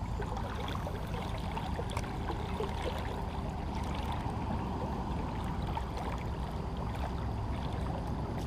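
Steady rush of river water flowing past, heard close at the water's surface, with a few faint ticks.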